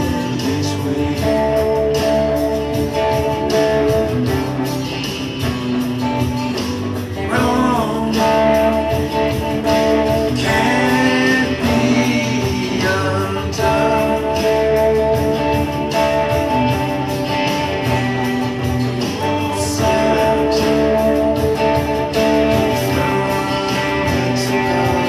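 Electric guitar playing blues: sustained notes and chords that change every few seconds, with a few bent, wavering notes about a third and halfway through.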